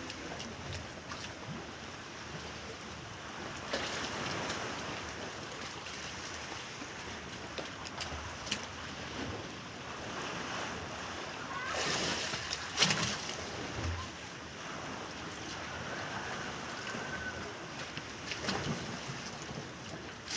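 Rough sea waves washing and splashing against a ferry's hull, with wind, as a steady rush broken by a few louder surges; the loudest, a sharp splash, comes a little past the middle.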